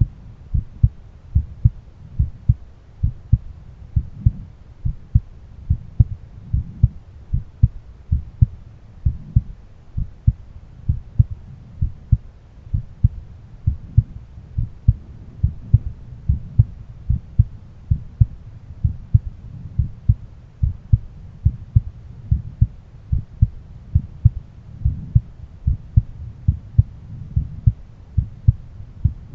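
A man's heartbeat heard through a stethoscope: a steady, regular run of dull lub-dub thumps.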